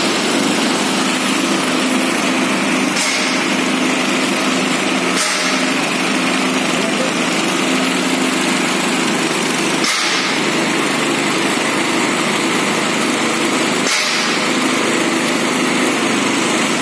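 Flexible screw conveyor running: a steady, loud motor hum with a low drone.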